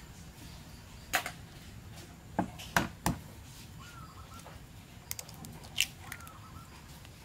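Eggshells being cracked by hand and broken open over a bowl: a series of about six sharp cracks and clicks, the loudest about three seconds in.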